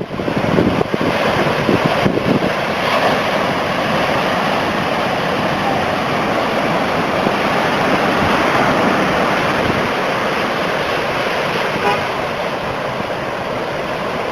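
Heavy hurricane surf breaking and washing ashore in a steady wash of noise, with wind buffeting the microphone, strongest in the first couple of seconds.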